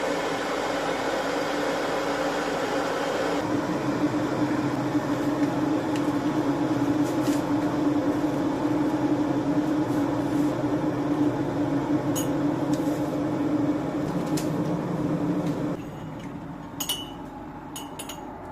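A household appliance hums steadily for about sixteen seconds and then shuts off, followed by a few light clicks.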